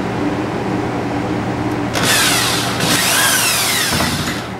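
Corded electric drill driving a 2.5-inch screw into wood, in two runs starting about two seconds in; the motor's whine drops in pitch as the screw bites and loads it.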